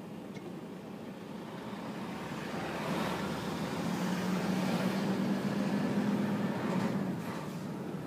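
Cargo truck's engine heard from inside the cab, its low drone swelling over several seconds and dropping back about seven seconds in.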